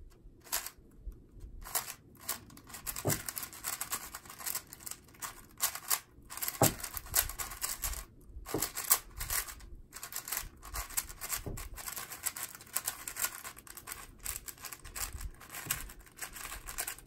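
A new, unlubricated Valk 4 magnetic 4x4 speedcube being turned fast by hand: a rapid, uneven clatter of plastic clicks and clacks from the layer turns, in quick runs with short pauses.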